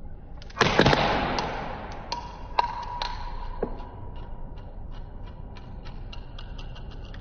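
A dog's paw smacks the plastic cap off a bottle with a sharp hit, then the cap clatters on a tile floor in a few knocks and a run of light ticks that come closer together near the end.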